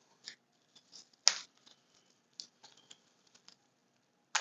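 Light handling of metal wristwatches: scattered small clicks and rustles, with a sharp click about a second in and another near the end.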